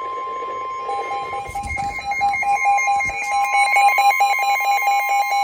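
Emergency alert tones: a steady high electronic tone gives way, about a second in, to a rapidly pulsing, alternating alarm tone that repeats several times a second.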